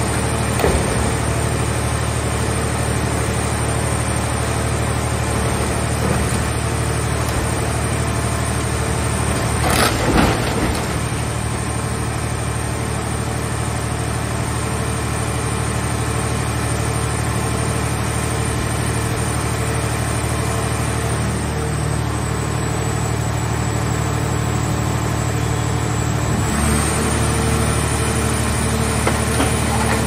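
Hydraulic car-shell scrap baler running: the steady hum of its power unit and pumps, with a brief louder burst of noise about a third of the way in. The machine's note shifts near the end as the press changes stroke.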